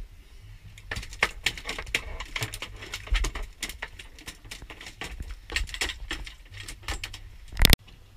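Long-handled deck brush scrubbing a bloody boat surface, its stiff bristles scraping and knocking in irregular strokes. One loud sharp knock comes near the end.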